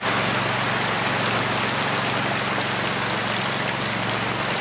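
Heavy rain with muddy rainwater running like a creek along the rows: a steady, dense rushing hiss that starts abruptly.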